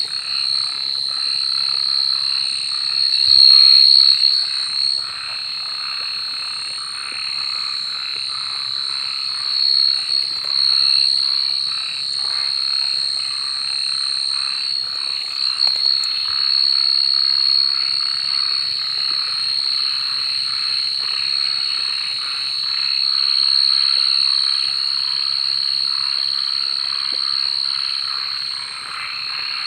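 A dense night chorus of many frogs calling over one another without pause, over a continuous high-pitched trill.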